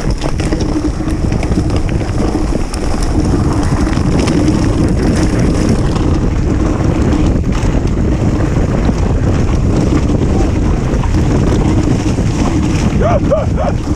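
Wind buffeting the camera microphone over the rolling rumble of mountain bike tyres on a dirt trail at speed, with scattered knocks from the bike over rough ground.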